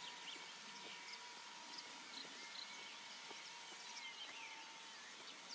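Birds chirping with short, quick calls over a faint, steady high whine from a tiny model-airplane combustion engine flying far overhead.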